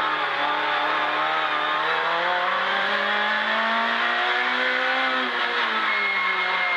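Citroën C2 R2 Max race car's four-cylinder engine heard from inside the cabin at race speed: the engine note dips briefly at the start, climbs slowly under power for about four seconds, then falls about five seconds in before holding steady, over constant road and cabin noise.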